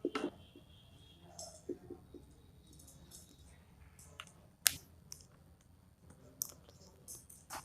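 Faint, scattered small clicks and taps from writing and handling pens and paper, with one sharper click a little past halfway.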